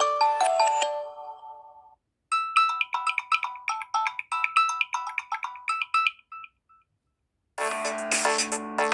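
Samsung Galaxy A71 stock ringtones playing back one after another. A melody of short pitched notes fades out, then after a brief gap a short ringtone of quick repeated notes plays for about four seconds and stops. After another pause a fuller, busier electronic ringtone starts near the end.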